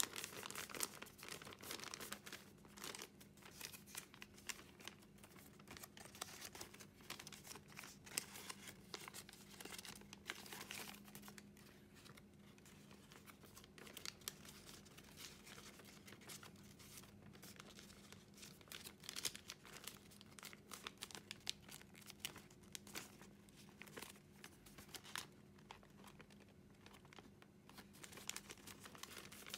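A large sheet of origami paper crinkling softly as fingers fold and crease it, with scattered crisp crackles and rustles throughout.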